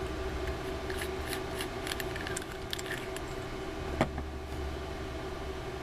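Faint small metallic ticks and scrapes of a rebuildable dripping atomizer being unscrewed from a mechanical mod and handled, with one sharper click about four seconds in.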